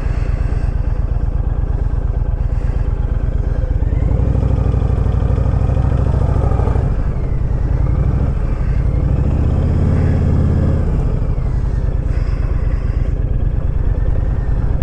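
Honda VTX 1300R V-twin motorcycle engine running under way, its low note swelling twice, about four and nine seconds in.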